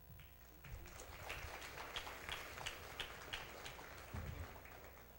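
Audience applause in an auditorium: a spread of light clapping with a few louder claps about three a second, fading out near the end.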